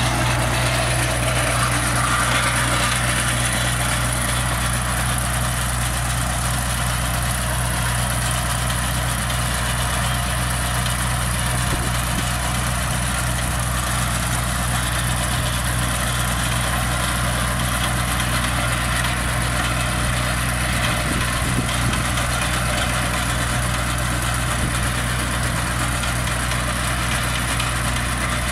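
Kioti DK5010HS tractor's diesel engine running steadily under load as it pulls and drives a Verti-Drain deep-tine aerator.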